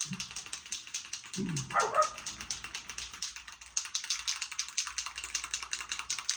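Rapid, continuous clicking rattle, like the mixing ball in an aerosol can of hydro-dip activator being shaken before spraying. A dog gives a short falling yelp about one and a half seconds in.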